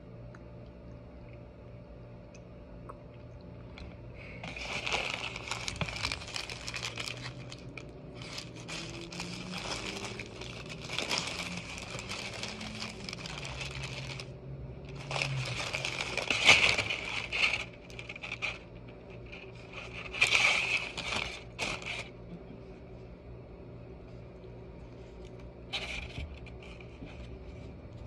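The wrapper of a breakfast burrito crinkling and rustling in bursts as it is peeled off by hand, stopping about three quarters of the way through with one last short rustle after.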